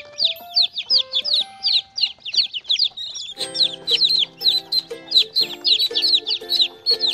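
Baby chicks peeping constantly, a fast run of short, high, falling peeps. Background music plays underneath, with a simple melody that gains fuller chords about halfway through.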